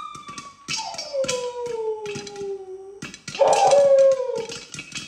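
Three long howling cries, each sliding down in pitch, over scattered sharp pops of popcorn kernels bursting in the pan.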